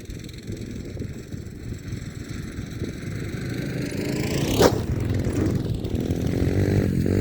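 Small off-road engine, from a dirt bike or four-wheeler, growing steadily louder as it draws closer, with a short sharp burst of noise a little past halfway.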